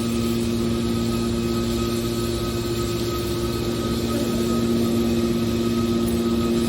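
Metal shear baler's hydraulic power unit running steadily: a constant mechanical hum with a few steady tones held over machine noise.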